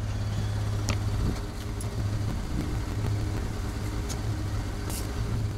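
Ford pickup truck's engine idling with a steady low hum, with a few faint light clicks over it.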